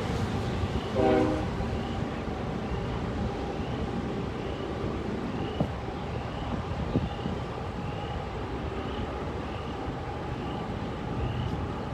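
Steady low rumble and hiss of wind and a vehicle, with a faint high chirp repeating about twice a second and a short, louder pitched sound about a second in.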